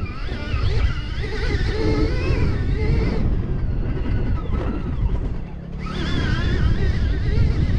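Stark Varg electric dirt bike's motor whining, rising and falling in pitch with the throttle, over heavy wind rumble on the microphone. The whine fades in the middle and comes back strongly about six seconds in.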